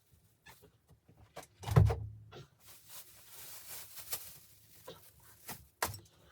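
Scattered knocks and clicks of objects being handled, with one heavier thud about two seconds in and a rustling hiss after it.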